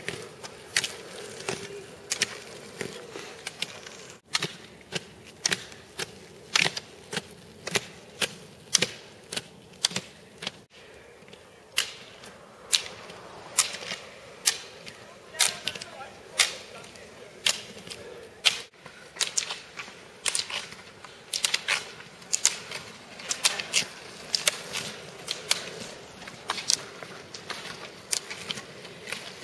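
Speed skates clacking sharply with the skaters' strides, one or two clacks a second, rising and falling in loudness.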